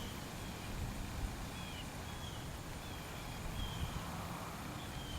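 Outdoor ambience: a steady low rumble, with short, faint bird chirps repeating every second or so.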